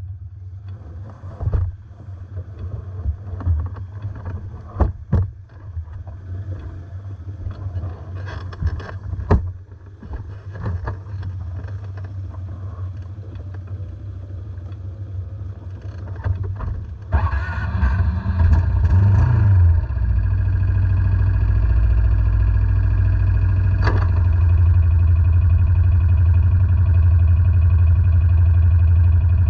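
Quad ATV engines idling in a steady low drone, with scattered sharp knocks and clatter. About 17 seconds in, a nearer engine grows louder and, from about 20 seconds in, runs as a strong, steady low drone.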